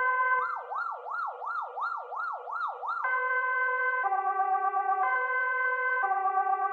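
Swedish police car siren. It switches from its two-tone hi-lo call to a fast yelp, rising and falling about two and a half times a second, then goes back to the hi-lo tones, which alternate about once a second.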